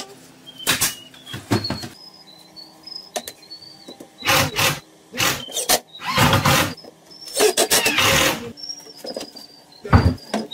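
Cabinet assembly in a plywood workshop: sharp shots and knocks from a pneumatic staple gun driving staples into the plywood cabinet panels. There are short bursts of tool noise in between, and a loud knock near the end. High bird chirps sound throughout in the background.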